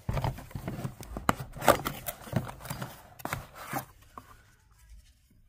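A cardboard box being opened by hand and a small item lifted out: a quick run of rustles, scrapes and light knocks of cardboard, dying down about four seconds in.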